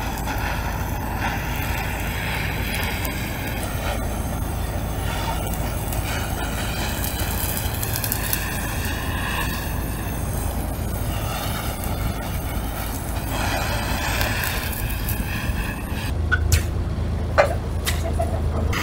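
Handheld butane blowtorch running steadily as it sears fish skin, over the low drone of an idling boat engine. A couple of sharp clicks near the end.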